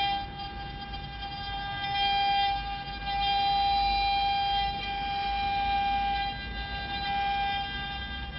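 Spindles of a 12-head CNC carving router running, a steady high whine at one fixed pitch that grows louder and softer every second or two as the cutters work.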